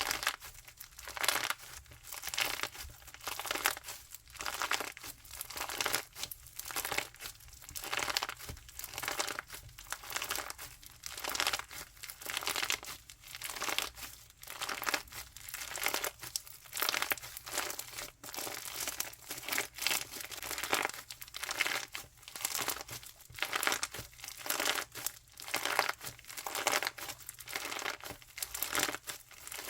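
Crunchy slime being squeezed and pressed by hand, crackling and popping in repeated bursts about once a second.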